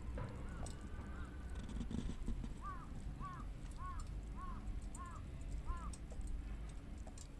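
A bird calling: a run of six short, harsh arched calls about half a second apart, with two fainter calls near the start, over a low wind rumble.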